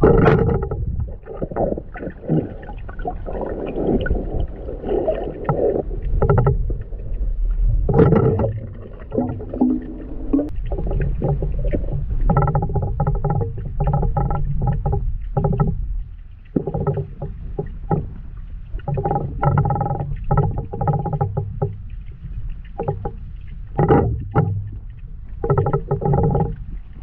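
Muffled underwater sound picked up by a camera below the surface: water swishing and bubbling, with many irregular knocks and clunks.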